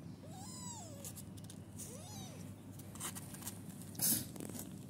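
Young kitten, under two weeks old, mewing twice: two high, thin mews that rise and fall, about a second and a half apart. Near the end come short rustles and one brief loud rustling bump, the loudest sound.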